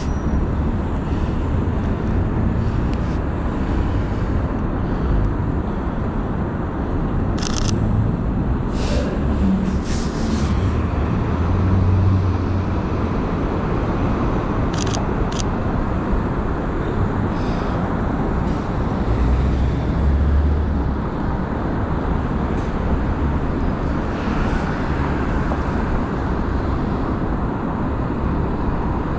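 Steady city road traffic with vehicles passing, rising to a louder low rumble about twelve and twenty seconds in. A few short sharp clicks, like a Sony A7III camera's shutter, come in the first half.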